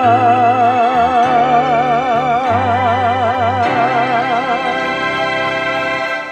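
Closing bars of a ballad: a long note with wide vibrato is held over changing bass notes. It fades out about four and a half seconds in, and the accompaniment thins and drops away near the end.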